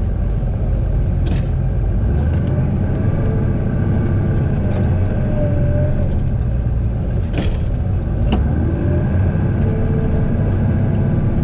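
Tractor engine running steadily under load, pulling a chained manure spreader free of packed snow, with a few sharp clanks along the way.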